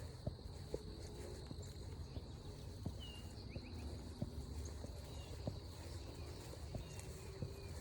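Footsteps walking along a forest trail at an even pace, about one and a half steps a second. Behind them runs a steady high insect drone, with a few short bird chirps about three seconds in.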